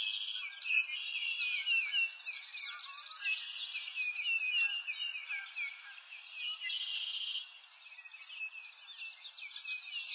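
Birds chirping and singing together, a dense chorus of many short, quick chirps and falling notes.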